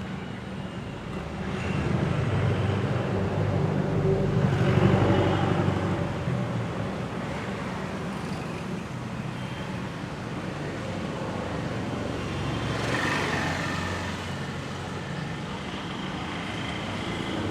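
Road traffic running steadily, swelling louder as vehicles pass about two to six seconds in and again near thirteen seconds.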